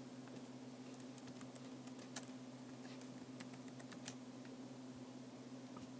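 Faint typing on an iPad's on-screen keyboard: scattered light taps and clicks over a steady low electrical hum.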